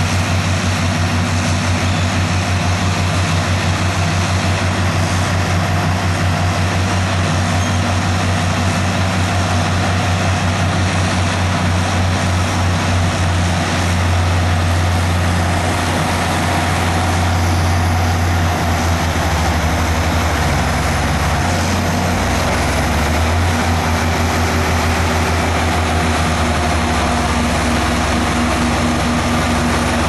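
Diesel tractor engines and a Pik Rite 290 tomato harvester running together in a steady, loud drone as the machines work through the field.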